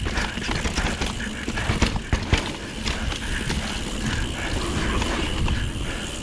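Mountain bike rolling down a dirt trail: tyres on dirt and the bike rattling over bumps, with a couple of sharper knocks about two seconds in, and wind rumbling on the action camera's microphone.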